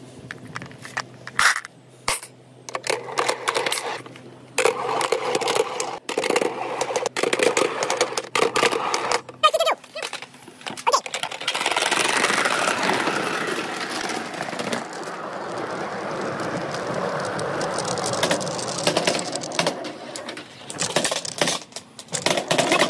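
Marbles and billiard balls rolling and clattering along a marble run of bamboo tubes: rapid clicks and knocks, with a stretch of continuous rolling noise from about twelve to twenty seconds in.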